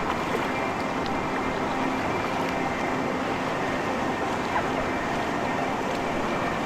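Steady rush of river water around a raft on the Hiwassee River, with a few faint ticks.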